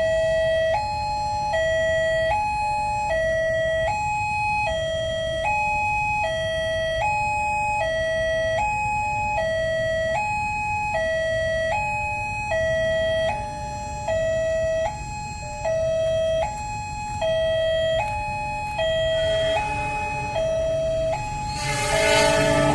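Electronic railway level-crossing warning siren sounding a steady two-tone high-low alternation, switching about every three-quarters of a second, to warn of an approaching train. A louder blaring sound joins near the end.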